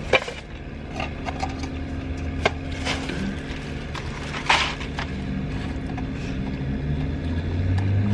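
Clear plastic bag of tortilla chips being handled and set down, with a few sharp crinkles and the chips crackling inside, over a steady low hum.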